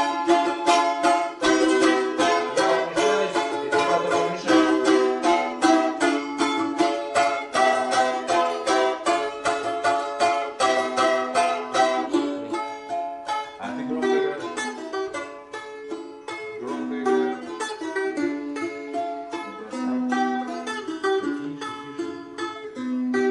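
Three balalaikas played together in rapid strumming over a repeating low figure; the strumming thins out about halfway through.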